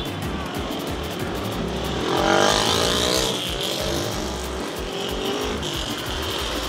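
Street traffic of motorcycles and cars passing close. About two seconds in, a motorcycle engine revs up with a rising pitch as it passes, the loudest sound here.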